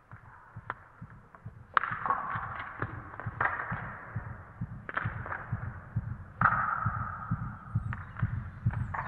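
Soundtrack of sharp metallic clanging hits, each ringing on briefly, over a low pulsing beat that grows louder after the first couple of seconds.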